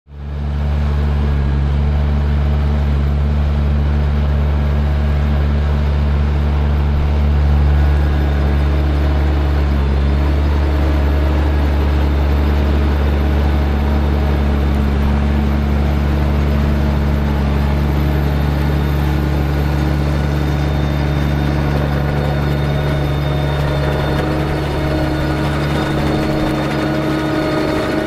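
Fendt 820 Vario tractor's six-cylinder diesel engine running at a steady speed as it pulls a two-row Ropa Keiler II L potato harvester, a deep, even hum that fades in at the start.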